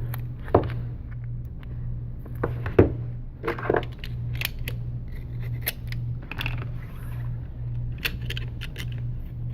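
Scattered small clicks and taps of hands and tools handling adhesive strips on a phone's edges, with a sharper click about half a second in and another near three seconds, over a steady low hum.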